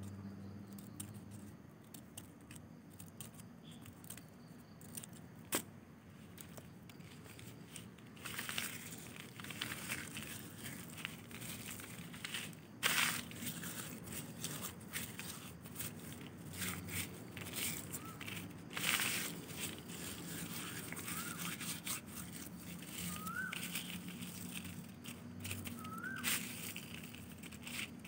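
Cut strips of notebook paper being crumpled and rustled by hand, in irregular bursts of crinkling that start about eight seconds in; before that there are only a few faint clicks of scissors and handling.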